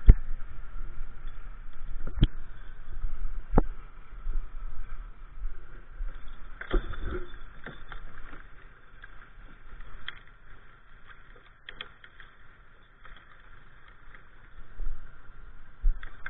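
Footsteps on a snowy forest track and handling noise close to a helmet-mounted microphone, with sharp knocks every few seconds over a faint steady hum; the knocks are strongest in the first seven seconds or so.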